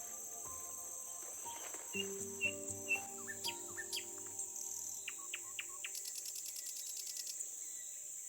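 Steady high drone of insects with a few short bird chirps, and a fast insect trill near the end, over soft background music of slow held notes.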